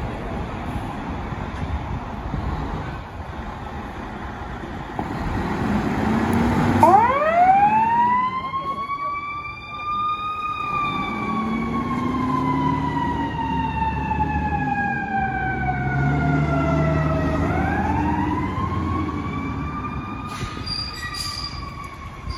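Fire engine siren winding up sharply about seven seconds in, then falling slowly in pitch over about seven seconds and winding up again near the end, over the low rumble of the truck's engine.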